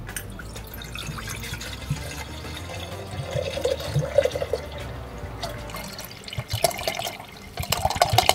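Blue copper electroforming solution poured from a plastic bottle into a small glass beaker: a steady thin stream splashing into the filling liquid, turning more uneven near the end.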